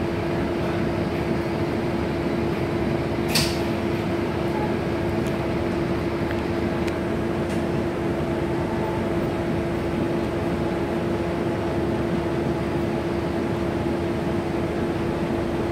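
Interior of a stationary city bus: the idling diesel engine and air conditioning give a steady hum with a constant drone. A single sharp click comes about three and a half seconds in.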